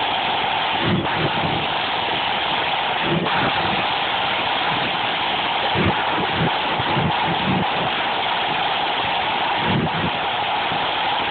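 Flute band drum corps playing a drum solo: snare drums rolling continuously, with bass drum strokes underneath at uneven intervals.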